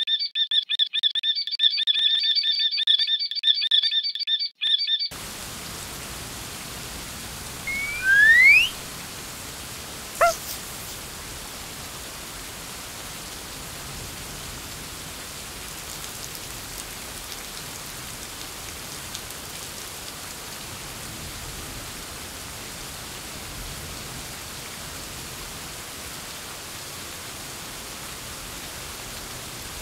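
Cartoon sound effects. A high, choppy warbling tone lasts about five seconds, then gives way to a steady rushing, rain-like water hiss: the gush of the dog's flood of urine. A loud rising squeal about eight seconds in and a short blip about two seconds later break the hiss.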